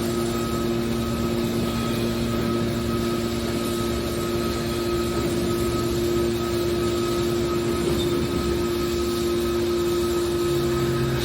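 Hydraulic scrap-car baler running, a steady machine hum with two held low tones and a fainter higher whine.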